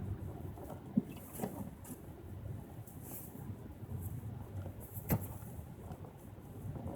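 A car being driven, heard from inside: a steady low rumble of engine and tyres on the road, with a sharp knock about a second in and another about five seconds in.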